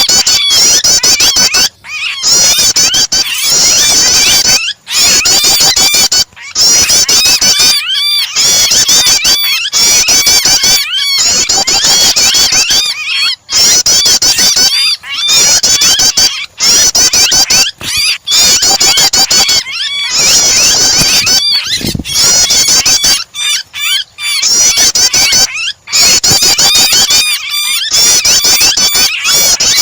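Loud, rapid, high-pitched chirping and trilling of prinias (prenjak) mixed with a trapped bird's distress calls, used as a starter call to provoke a captive bird into singing. The calling runs almost nonstop, broken by short pauses every second or two.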